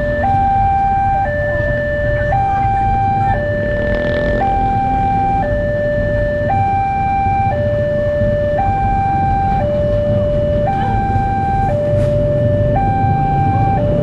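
Railway level crossing's electronic warning alarm sounding a two-tone signal, high and low pitch alternating about once a second, warning that a train is approaching. A steady low rumble lies underneath.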